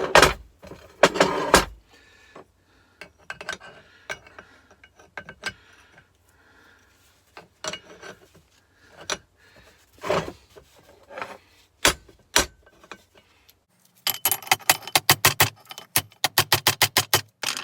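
Hammer blows on the metal of a car air-conditioning compressor being broken apart: two heavy strikes at the start, scattered metallic clinks and knocks, then a fast run of ringing strikes, about five a second, over the last few seconds.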